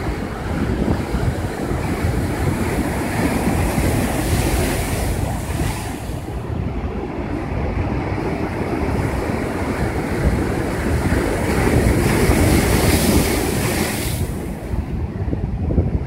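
Heavy ocean surf breaking and washing over a rock riprap shoreline, a continuous churning whitewater sound. The hiss swells twice, from about two to six seconds in and again from about eleven to fourteen seconds, then falls away. Wind buffets the microphone.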